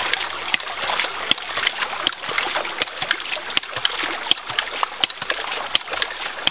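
Hydraulic ram pump being primed by hand: its brass top (waste) valve is pushed open again and again, water spurting and splashing out of it, with sharp clacks about twice a second as the valve snaps shut. Each push builds pressure in the pump's tank.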